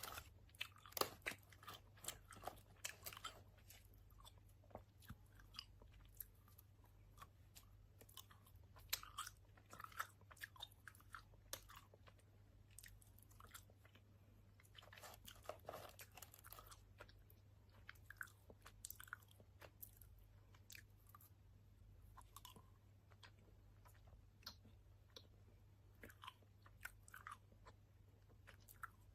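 Faint close-up chewing of a sour-powder-coated fruit gummy candy, open-mouthed with lip-smacking: many small, irregular wet clicks of lips and tongue, busiest near the start and again about halfway through.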